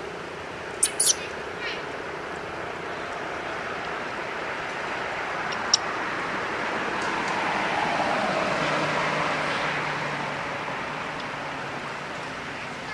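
Baby monkey giving two short, shrill squeaks about a second in and a fainter one midway. Behind it, a steady rumble of passing traffic swells to its loudest a little past the middle.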